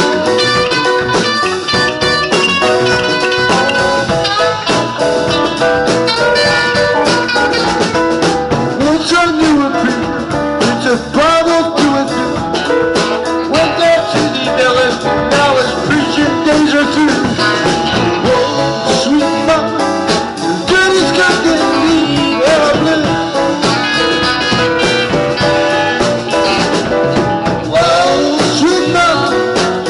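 Live band playing a blues number: two electric guitars, electric bass, drum kit and electric keyboard, with guitar lines bending in pitch. A voice sings near the end.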